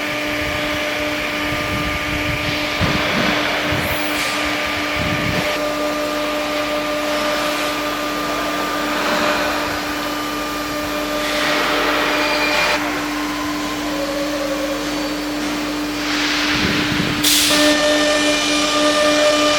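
CNC nesting router running: a steady machine drone with one constant tone, overlaid by louder rushes of noise that come and go every few seconds, and two brief high-pitched bursts, one about four seconds in and one near the end.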